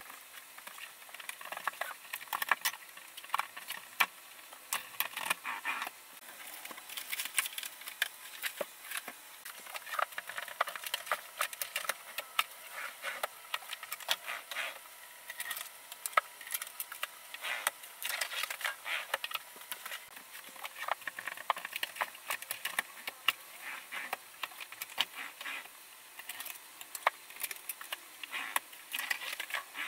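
Scattered small clicks, taps and crackly rustling as the resin-framed sashes of an interior sliding window are handled and fitted into their frame.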